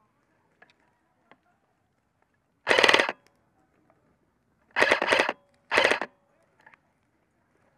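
Airsoft rifle firing four short full-auto bursts of about half a second each, one about a third of the way in and three close together a little past the middle, with near quiet and a few faint clicks in between.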